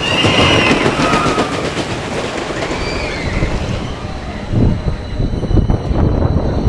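An amusement-park ride train running on its track: high wheel squeals and quick clicking over the rails in the first few seconds, then a heavy, uneven rumble from about four and a half seconds in.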